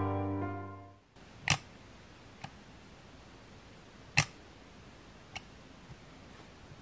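Piano music dies away in the first second. Then the 1938 Univex Iris's guillotine metal-blade shutter is fired twice on Instant: each firing is a sharp click, followed about a second later by a softer click.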